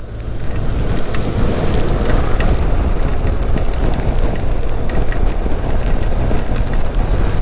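Benelli TRK 502 motorcycle on the move: a steady mix of engine, tyre and wind noise, with a few faint ticks scattered through it.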